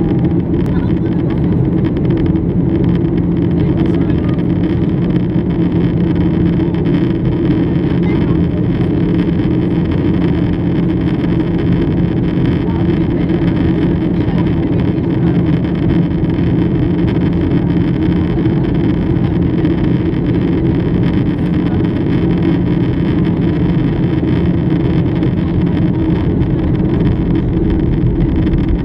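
Steady cabin noise inside a Boeing 737-800 in flight on its descent: the low drone of its CFM56-7B turbofan engines and the rush of air along the fuselage, with a couple of steady held hum tones underneath.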